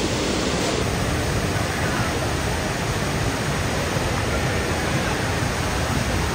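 Steady, even rush of a large indoor waterfall: the Rain Vortex, a column of water plunging through the oculus of a glass dome into a pool far below.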